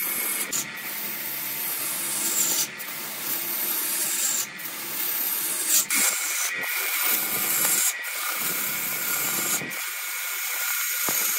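Gouge cutting into a large wood blank spinning on a wood lathe: a steady scraping hiss as shavings are peeled off, broken by short pauses every second or two as the tool eases off the wood.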